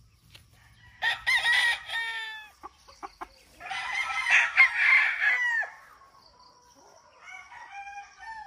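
Gamefowl roosters crowing: a short crow about a second in, then a longer, louder crow through the middle ending in a falling note, and a fainter crow near the end.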